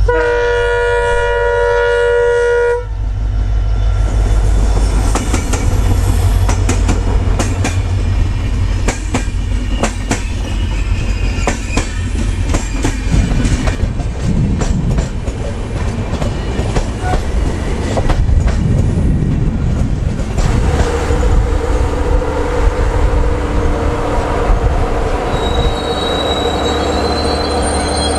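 Multi-note horn of a WDP4D diesel locomotive sounding for about three seconds, then an express train passing with a loud rumble and the clickety-clack of wheels over rail joints. About twenty seconds in, a steady wheel squeal joins the rumble.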